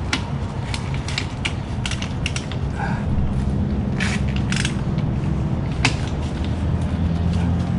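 A socket wrench working the motorcycle engine's oil drain bolt loose for an oil change, giving sharp, irregular clicks. A steady low hum runs underneath.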